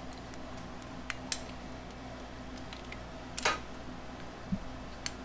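A few light clicks and one louder click-scrape of metal and plastic parts being handled as a Keihin CVK carburetor is worked loose from a motorcycle engine, over a steady low hum.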